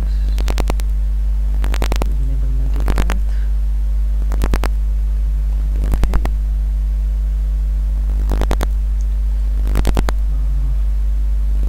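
Loud, steady electrical hum from a faulty microphone, with a few fainter steady tones above it. Over the hum come computer mouse clicks, often two or three in quick succession, every second or two.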